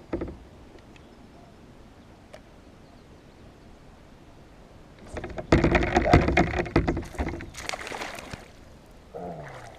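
Splashing and knocking at the side of a kayak for about three seconds, starting about halfway in, as a hooked bass is brought in. It is full of sharp clicks and knocks.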